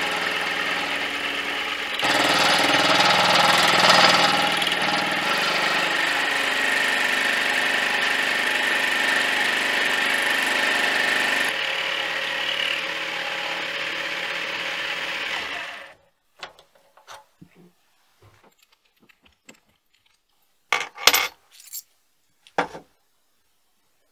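Mini lathe running and turning a metal workpiece: a steady mechanical whine from the motor and gear train, getting louder about two seconds in as the cut takes hold. It stops abruptly after about sixteen seconds, followed by a few short clicks and knocks of metal parts being handled.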